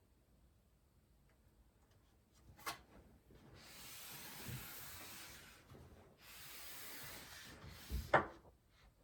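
Hands handling a PC case: two stretches of rubbing and sliding, each about two seconds long, with a click before them and a sharp knock near the end.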